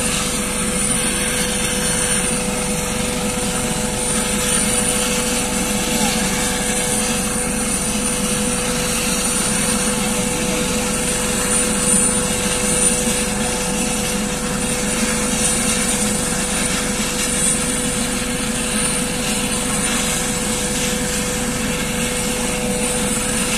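Eurocopter AS365 Dauphin twin-turbine helicopter running on the ground with its rotor turning. A steady turbine whine with a high whistle over a constant rotor hum, not rising or falling.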